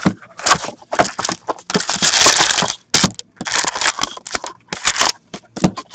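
Clear cellophane shrink wrap being torn and crumpled off a cardboard box of hockey cards, in irregular crinkling bursts with a long loud crinkle about two seconds in. Then foil-wrapped card packs rustle as they are pulled out of the box.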